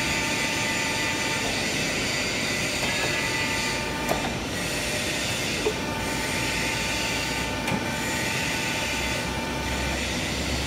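Hydraulic power unit of a pipe bending machine running steadily: an even hiss with several high, steady whining tones, and a few faint clicks around the middle.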